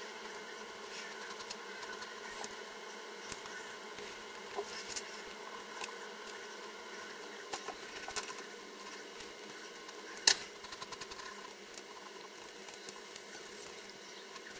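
Sped-up sound of a pen or marker sketching on paper: fast scratchy strokes over a steady hum, with scattered light taps and one sharp click about ten seconds in.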